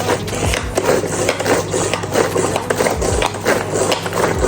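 Electric blender running on peppers: a steady motor hum with repeated knocks as the pieces are chopped, still a rough, unfinished blend.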